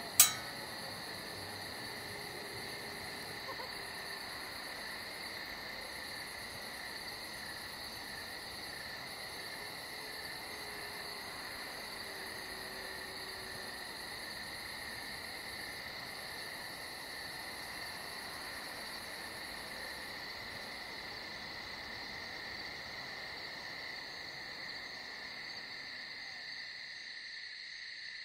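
Steady night chorus of crickets trilling without a break, with one sharp click just after the start.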